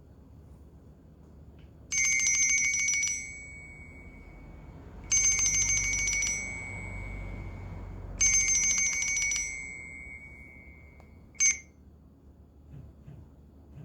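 Phone ringtone from a BLU Advance 4.0 L played through its speaker: a fast ringing trill sounding three times, each lasting about a second with the tone ringing on afterwards, then one short ring near the end.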